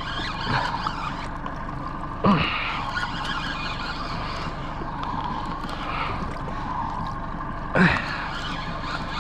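Boat motor running at trolling speed with wind and water noise, broken twice by a short, loud sound that falls in pitch.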